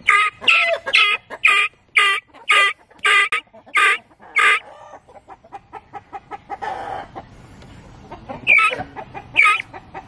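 Pearl gray guinea keet, a young helmeted guineafowl, calling loudly in protest at being held: a rapid string of sharp, harsh calls about two a second that stops about halfway through, then a few more calls near the end.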